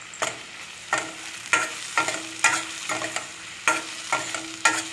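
A spoon stirring and scraping onions, brinjal and tomatoes as they fry in oil in a stainless steel pan. There are about two sharp scrapes a second over a steady sizzle.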